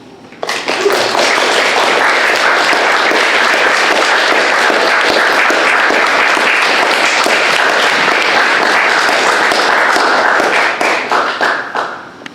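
Audience applauding: the clapping starts suddenly about half a second in, holds steady for about ten seconds, then dies away into a few scattered claps near the end.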